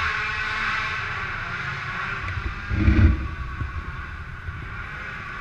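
450-class racing quad ATV engines running at high revs, a buzzing note that fades over the first couple of seconds as the quads move away around the track. A short low thud stands out about three seconds in.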